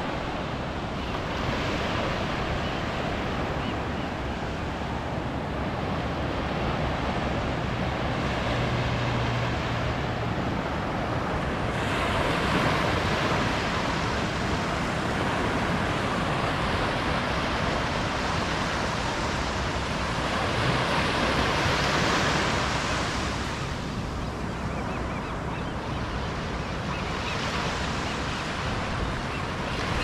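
Ocean surf: a continuous rush of waves breaking and washing up a shore, swelling louder twice.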